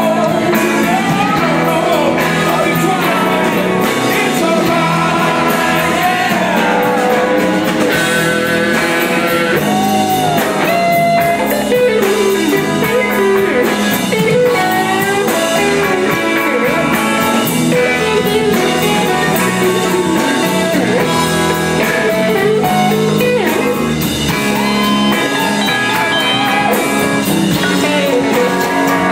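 Blues-rock band playing live, with an electric guitar lead playing bending, gliding notes over bass and drums.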